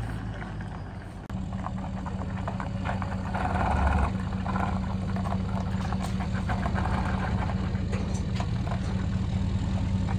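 Pickup truck engine idling with a steady low hum while it moves a boat trailer at a launch ramp, with a brief louder noise about three and a half seconds in.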